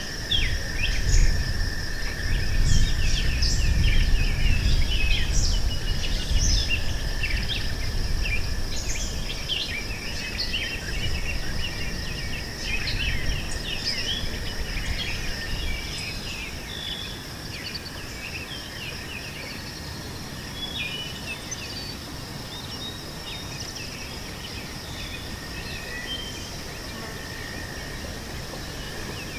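Meadow ambience: insects trilling steadily at two high pitches, with many birds chirping over them. A low rumble under the first half dies away around the middle.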